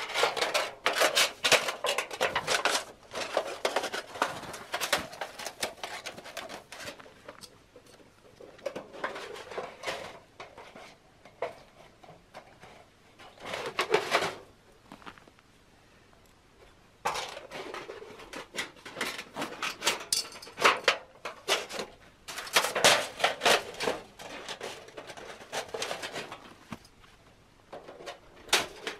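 Thin titanium stove chimney pipe and stove parts being handled, light sheet metal rattling and clinking in bursts of rapid clicks with short pauses between them.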